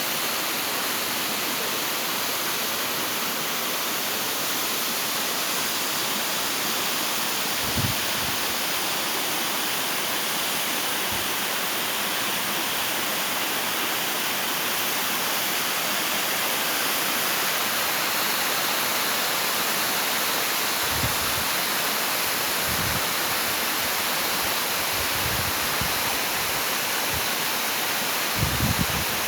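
Waterfall rushing steadily, a dense even roar of falling water. A few brief low thumps, about eight seconds in and again near the end.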